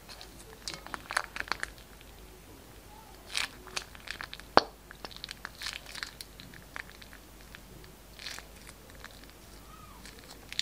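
Plastic piping bag crinkling and crackling in irregular bursts as it is squeezed and crumpled to push out the last of the glossy slime, with sticky clicks from the slime. One sharp click about halfway through is the loudest.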